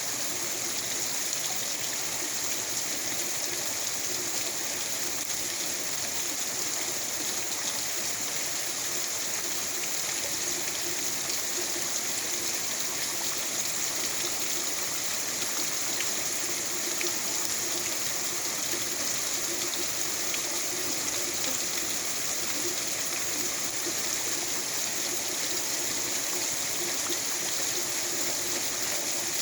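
Steady rain falling, with a constant hiss and the sound of water running and trickling; it stays even throughout with no separate drops or gusts standing out.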